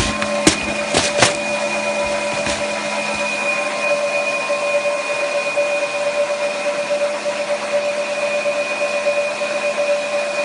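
Delta belt colour sorter running while sorting green coffee beans: a steady machine hiss with several constant whining tones. A few sharp knocks come in the first second or so.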